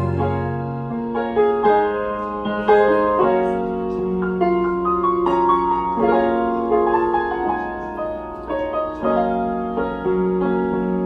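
Grand piano playing a slow, unaccompanied jazz passage of chords and single melody notes, each note struck and left to ring.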